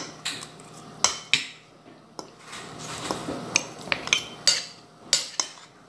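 Metal fork and spoon clinking and scraping against a plate while eating, heard as scattered short clicks and knocks.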